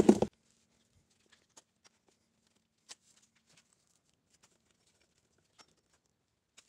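Near silence with faint, scattered clicks and light handling noises, the clearest about three seconds in, over a faint low hum that stops about halfway through.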